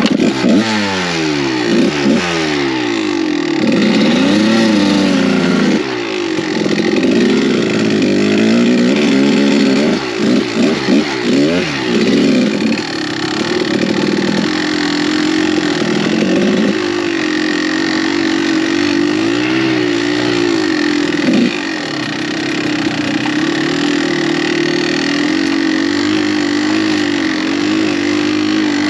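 Kawasaki KDX200 two-stroke single-cylinder dirt bike engine under way, revs climbing sharply right at the start, then rising and falling repeatedly with the throttle and settling to a steadier drone over the last several seconds.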